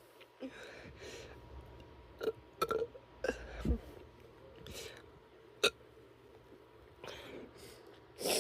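A person chugging a drink: a run of short gulps, then a deep burp that falls in pitch about three and a half seconds in, with airy breaths and a sharp click later on.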